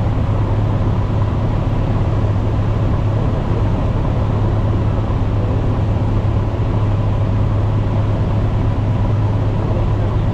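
Cessna 150H cabin noise: the small four-cylinder engine and propeller running with a steady drone, with airflow noise around the cabin, unchanging throughout.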